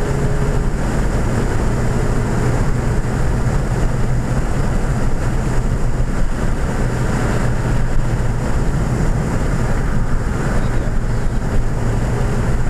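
Inside the cabin of a 2014 Ford Fiesta ST at track speed: a steady drone from its turbocharged 1.6-litre four-cylinder under load, mixed with wind and road noise.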